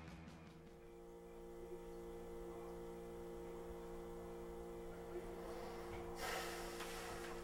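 A steady low hum of several held tones, with a hiss joining it about six seconds in.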